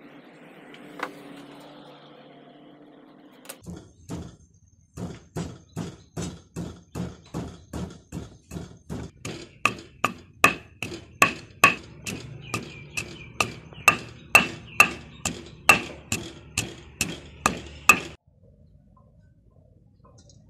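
Wooden pestle pounding chopped galangal in a stone mortar: a steady run of knocks, about two a second. The knocks grow louder and take on a ringing tone about halfway through, then stop suddenly.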